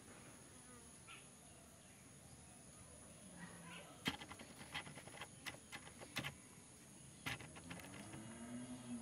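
Faint buzzing of a small insect, coming and going, with a quick run of light clicks and taps about halfway through.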